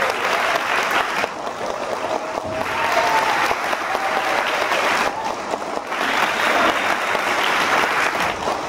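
Audience applauding, the clapping easing briefly a few times before picking up again.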